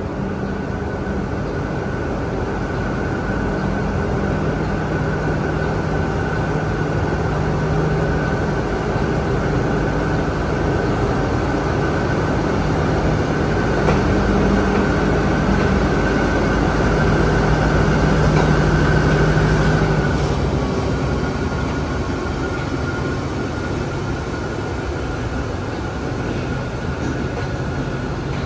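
Alsthom 4152 diesel-electric locomotive pulling a passenger train slowly out of the station, its engine running with a steady drone and a higher whine. It grows louder as the locomotive draws level and passes, then eases off about two-thirds of the way through.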